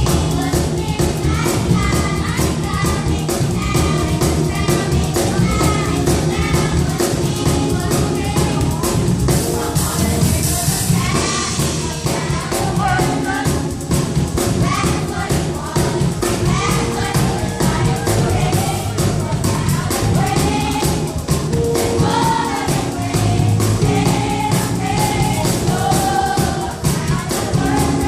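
Church youth choir singing gospel music in parts, backed by a live band with drums and sustained bass notes at a steady beat.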